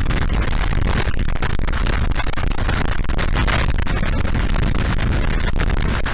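Steady, loud wind and road noise of a motorcycle riding at speed, with constant buffeting flutter on the microphone.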